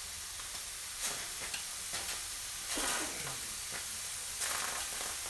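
Lemon slices sizzling as they char in a hot stainless steel skillet, a steady hiss with a few short clicks and pops.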